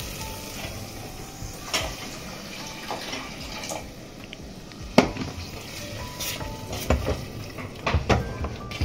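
Water poured from an electric kettle into a steel pot of fried masala paste, with a few sharp knocks of the spatula and pot as the water is stirred in.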